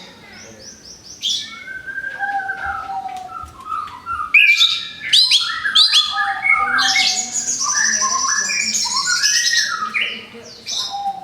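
Orange-headed thrush singing a long, varied song of clear whistled phrases, rising and falling glides and quick chattering notes, fullest from about the middle on.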